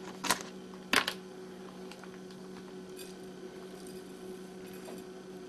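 A few light handling clicks and one sharp knock about a second in, then only a steady low hum.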